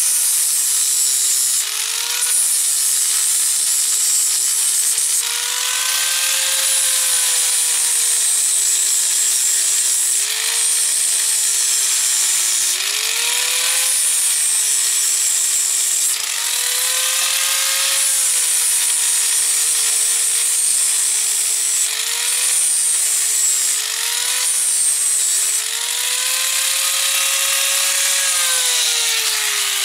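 Electric angle grinder with a flap disc grinding the weld beads off steel spanners. The motor's whine drops in pitch each time the disc is pressed into the metal and climbs back as it is eased off, many times over; at the end it is switched off and spins down.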